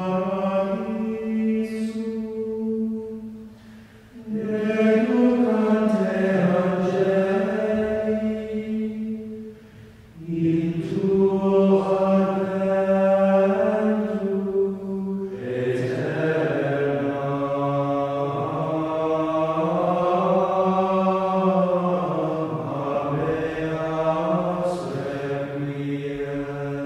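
Slow sung chant: voices holding long notes that glide gently in pitch, in phrases that pause briefly about four and ten seconds in.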